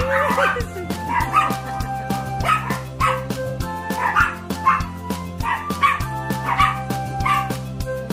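Background music with a steady beat, over small poodles barking in short bursts.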